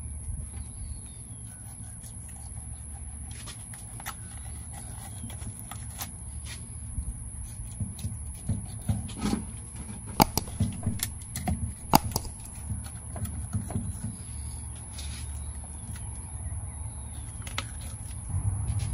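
Fillet knife working along a large catfish on a wooden board, with scattered sharp clicks and knocks of the blade and fish being handled, thickest in the middle of the stretch. A steady low hum runs underneath.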